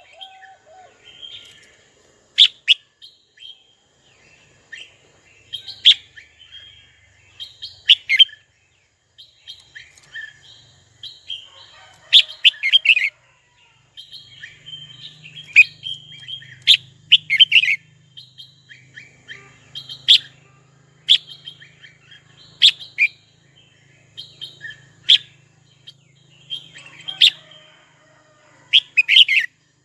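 Red-whiskered bulbul singing and calling: short, sharp chirping phrases repeated every second or two.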